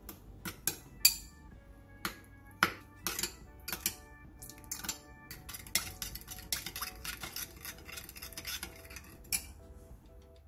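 Metal spoon clinking against the sides of a small ceramic bowl while stirring a liquid sauce, an irregular run of sharp clinks that stops near the end. Soft background music underneath.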